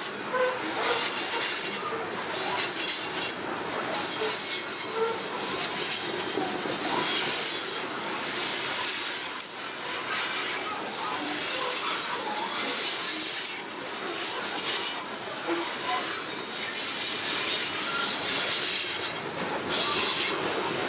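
CSX coal hopper cars of a freight train rolling past close by: a steady rolling rumble and hiss of steel wheels on rail, with brief scattered wheel squeals.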